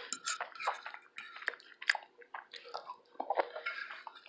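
Close-miked chewing with wet mouth sounds: irregular lip smacks and clicks as food is chewed.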